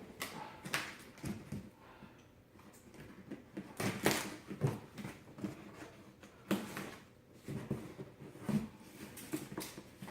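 Cardboard shipping box being handled and opened: irregular rustling and scraping with several knocks, the strongest about four seconds in.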